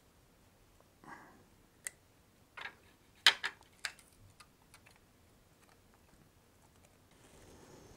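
Small plastic clicks and taps from fitting a Raspberry Pi camera module and its ribbon cable into a plastic Lego-style Pi case: a handful of sharp clicks between one and four seconds in, the loudest about three seconds in, then only faint handling.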